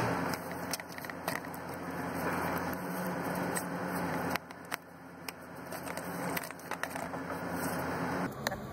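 Old fuel filter element from a Ram 6.7L diesel being pulled out of its housing by hand: scattered plastic clicks and rustling, rubbing sounds over a steady low hum.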